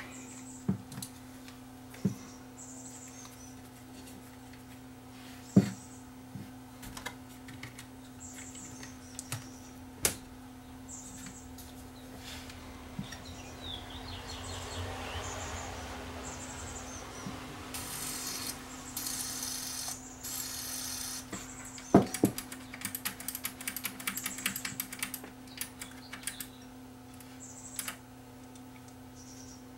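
Aerosol contact cleaner sprayed through its thin extension straw into a sealed switch inside an amplifier: a hiss lasting a couple of seconds about two-thirds of the way through, followed by a quick flurry of clicks and rattles. Scattered knocks and handling taps over a steady low hum fill the rest.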